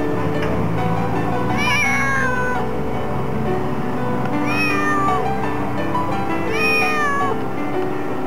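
A black-and-white domestic cat meowing three times from inside a pet carrier, each meow short and rising then falling in pitch, over steady background music.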